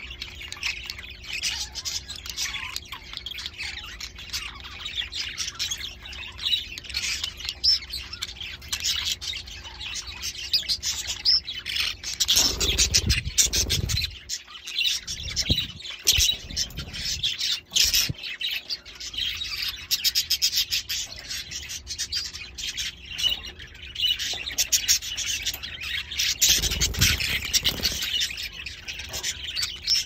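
Budgies chirping and chattering nonstop in a busy, overlapping warble. Twice, about halfway through and again near the end, a low rumbling noise joins in for a second or two, and a faint steady hum sits beneath it all.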